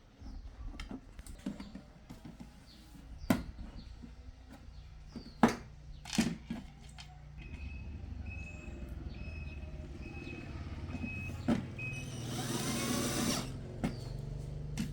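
Electronics repair bench sounds: a steady low hum with a few sharp clicks and knocks, then a run of about eight short high electronic beeps, and a brief loud hiss or rustle near the end.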